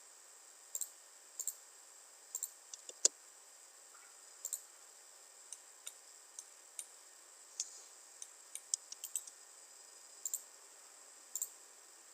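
Computer mouse clicking: scattered single and quick double clicks, one every second or so, over a faint steady hiss.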